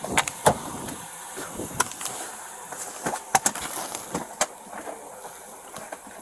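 Irregular sharp clicks and knocks over a steady hiss, with light rustling between them.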